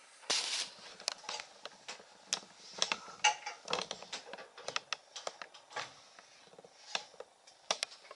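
Metal woodworking clamps handled by hand: an irregular run of clicks, knocks and short scrapes as the clamp jaws slide on their bars and the handles are turned, with a longer scrape about half a second in.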